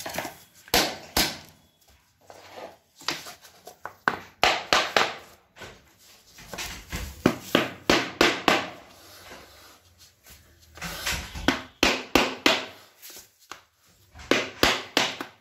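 Hammer striking a wooden tapping block against the edge of 8 mm laminate floor planks: repeated sharp wooden knocks in several bursts with short pauses between them, driving the planks' click-lock joints tight.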